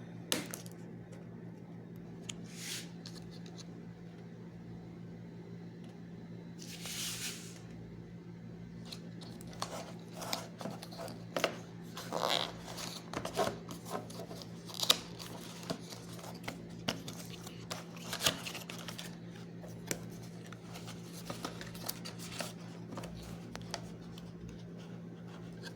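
A cardboard gaming-mouse box being opened by hand: a brief tearing swish, then many scattered scrapes and clicks of packaging being handled, over a steady low hum.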